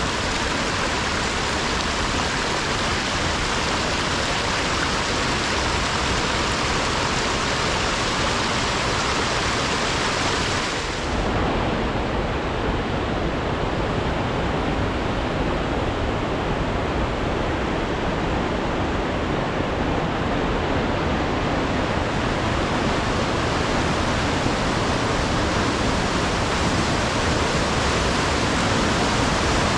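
Fast stream rushing over rocks in rapids and small falls, a steady rush of water, with a brief dip and slight change in tone about eleven seconds in.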